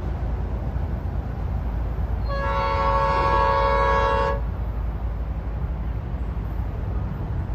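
Approaching train's locomotive horn sounding one blast of about two seconds, a chord of several tones, over a steady low rumble.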